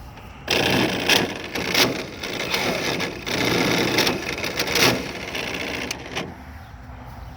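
Milwaukee M18 FUEL string trimmer's motor, a brand-new tool that the owner says has a bad motor, starting up about half a second in and running unevenly with irregular surges, then winding down about six seconds in.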